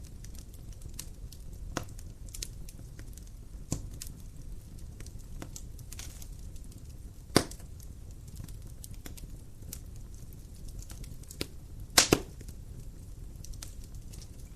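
Wood fire in a fireplace crackling: a low steady rumble with irregular sharp pops. The loudest pop comes about halfway through, and a quick double pop follows near the end.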